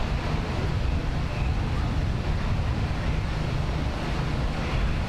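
Steady low rumble of idling vehicle engines with wind buffeting the microphone.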